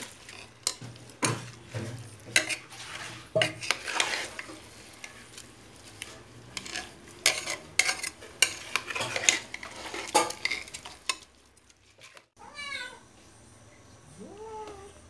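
Metal spoon scraping and clinking against the inside of an aluminium pressure cooker as biryani rice is stirred gently. After the stirring stops, a cat meows twice near the end.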